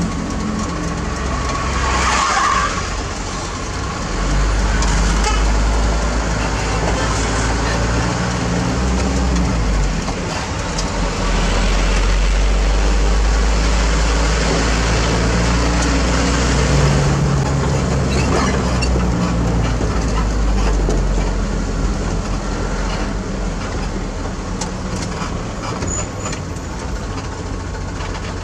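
Mitsubishi Fuso Canter truck's diesel engine and road noise heard from inside the cab while driving, the low engine drone shifting up and down several times as the truck changes speed.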